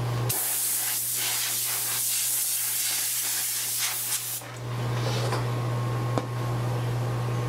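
Heat gun blowing hot air as a steady hiss for about four seconds, then switched off, followed by a couple of faint clicks. It is heating the iPad 3's frame to soften the adhesive so the leftover digitizer glass can be cleared out.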